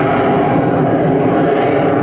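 Lockheed Martin F-22 Raptor's twin Pratt & Whitney F119 turbofans in flight, a loud, steady jet roar.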